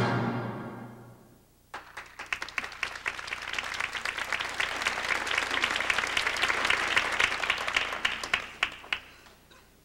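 Orchestral music fades out within the first second or so, then a theatre audience bursts into applause, which builds, holds and dies away about nine seconds in.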